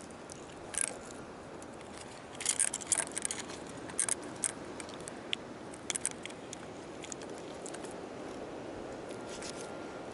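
Close handling noises of fishing gear and chum: scattered clicks, scrapes and crackles, with a busy flurry about two and a half seconds in. Under them runs a steady background hiss.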